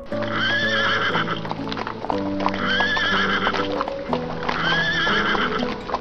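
Horse whinnying three times, about two seconds apart, each call alike, over the clip-clop of hooves.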